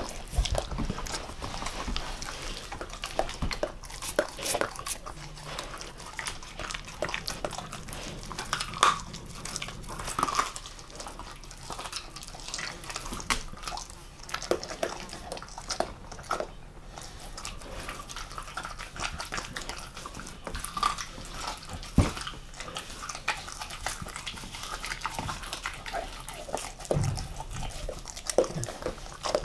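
German Shepherd mix eating a raw monkfish: wet chewing, licking and smacking, with many short sharp clicks of teeth on the fish and a few brief squeaks.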